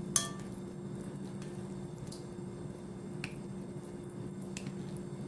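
Plastic salad spoon and fork tossing shredded vegetables in a glass bowl: soft squishing with a few scattered light clicks, the sharpest about a quarter second in. A steady low hum runs underneath.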